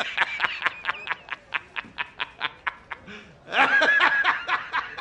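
A man laughing hard: a rapid string of "ha" pulses, about four or five a second. About three and a half seconds in comes one longer, louder burst of laughter, and then the rapid pulses resume.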